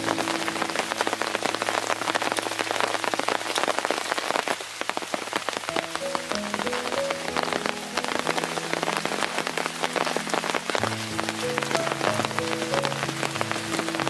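Steady rain falling, a dense spray of drops hitting leaves and an umbrella. Under it runs soft background music of held notes, which drops out for a couple of seconds near the middle.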